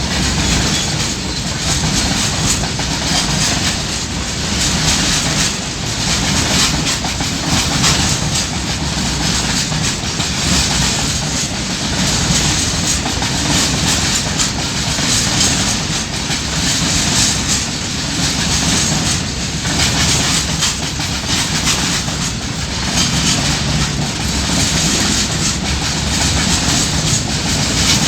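A train passing close by, its wheels clattering over the rail joints in a steady, continuous run of clicks and rumble.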